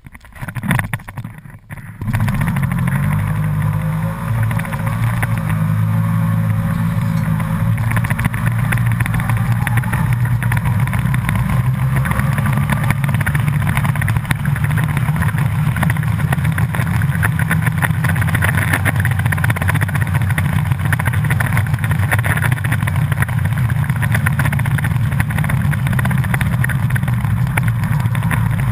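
Snowmobile engine picking up about two seconds in, then running steadily at speed.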